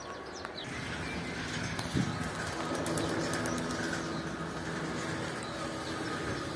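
Domestic pigeons cooing, low and steady, with a single knock about two seconds in.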